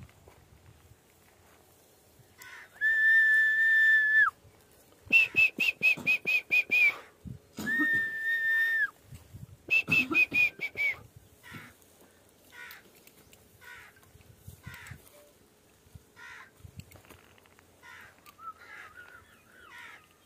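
A person whistling: a long steady whistled note, then a run of quick short whistled chirps at about five a second, the pair repeated twice in the first half. The second half holds only fainter scattered short sounds.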